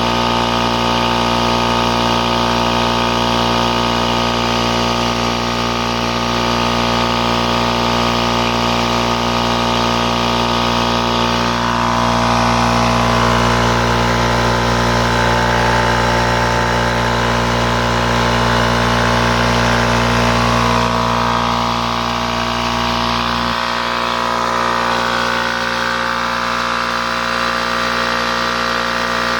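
A 5 hp, 20-gallon Charge Air piston air compressor running steadily as its pump builds pressure in the tank. The low hum shifts about two-thirds of the way through.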